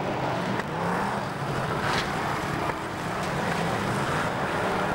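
Stock car engines running hard as the cars race and collide on a dirt track: a steady, dense engine din with a sharper knock about two seconds in.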